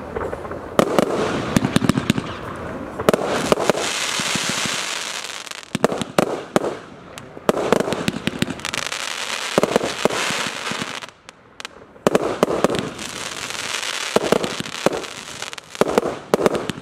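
TROPIC TB402 'Armageddon' 122-shot firework battery firing shot after shot in quick succession, sharp bangs of the launches and bursts overlapping, with stretches of hissing between volleys and a brief lull about eleven seconds in.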